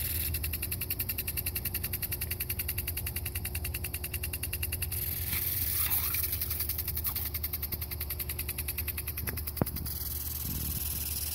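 Lawn sprinkler spraying water with a fast, even pattering rhythm over a steady low rumble. About five to six seconds in, a dog splashes and snaps at the water jet, and a single sharp click comes near the end.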